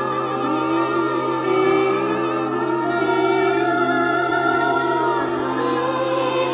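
Several voices singing together in an operatic style, with wide vibrato, over a steady low drone.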